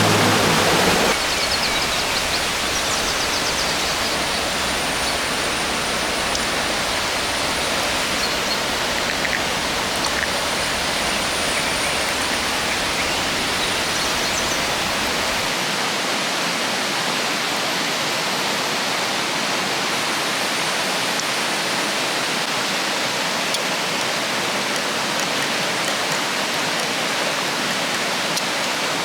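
River water rushing steadily, an even unbroken rush; background music cuts off about a second in.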